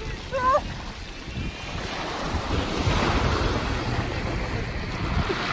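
Sea surf washing onto a pebble shore, a steady rush that swells after the first couple of seconds, with wind rumbling on the microphone.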